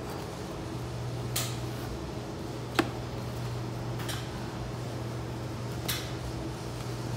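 A large knife cutting through a baked pie crust, with four short scrapes and taps as the blade reaches the metal pan underneath; a sharp tap a little under three seconds in is the loudest. A steady low hum runs throughout.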